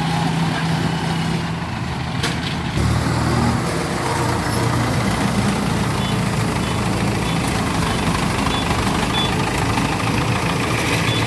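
Heavy diesel engine running steadily, with a clank about two seconds in, after which the engine note drops and gets heavier. Faint short high beeps repeat about every three-quarters of a second in the second half.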